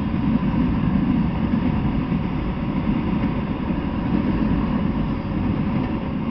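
Freight train of autorack cars rolling past: a steady rumble of steel wheels on the rails.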